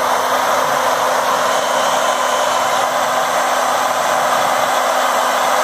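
Harbor Freight 65836 portable utility water pump, a 1/2 HP electric motor on a cast iron pump, running steadily with a constant hum. Water from its outlet splashes onto paving. The pump is loud, up to about 100 dB at the pump, while moving only about 4 gallons a minute.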